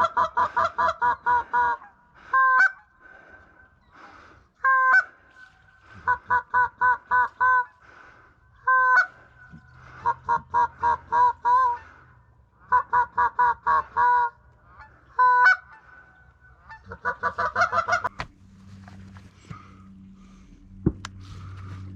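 Loud goose-like honking calls in quick runs of about eight short, even notes, broken by single longer honks that jump in pitch, until about eighteen seconds in. After that, a low steady hum and a single click.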